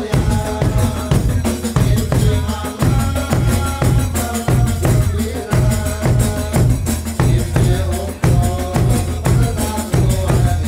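Live Badui folk-dance music: drums beating a steady rhythm about twice a second with tambourine-like jingles, and a chanted melody over the beat.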